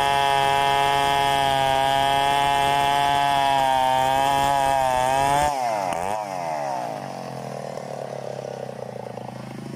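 Large chainsaw running at full throttle with a steady, high engine note as it rips through a log. About five and a half seconds in, the sound breaks off abruptly and the engine note drops in pitch and level.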